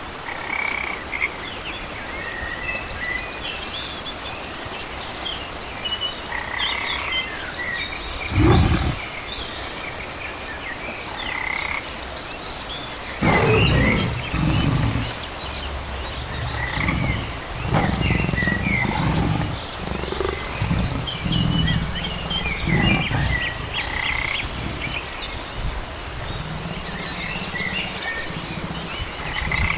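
Wolf growling in short low bursts, loudest a little past eight seconds and again around thirteen seconds. High chirps and quick trills of small forest creatures run on underneath.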